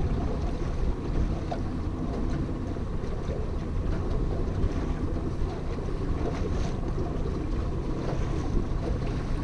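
Outboard motor running steadily at trolling speed, with wind noise on the microphone.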